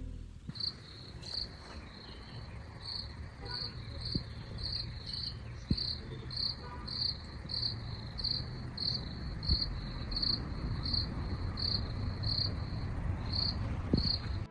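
A cricket chirping steadily, about one and a half short high chirps a second, over a low rumbling background noise.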